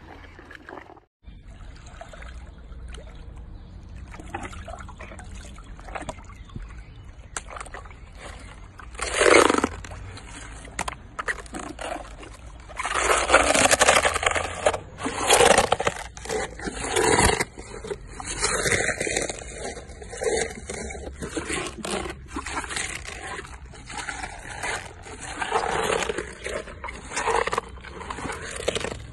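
A hippopotamus chewing a mouthful of cabbage, with wet crunching and mouth sounds. Loud bursts come irregularly: one about nine seconds in, a dense run from about thirteen to seventeen seconds, and smaller ones after that.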